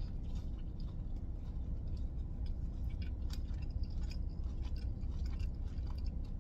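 A person chewing a mouthful of thin-crust pizza with the mouth closed: small irregular wet clicks and crunches throughout, over a steady low rumble.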